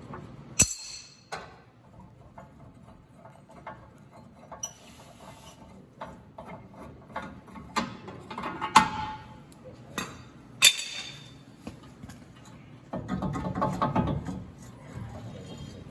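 Hand tools working on a pickup's front suspension at the torsion keys: scattered metal clicks and clanks with ratchet-like clicking, broken by three sharp metal knocks, and a denser rattle near the end.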